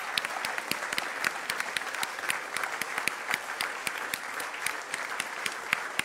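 Audience applauding, many hands clapping steadily with individual claps standing out.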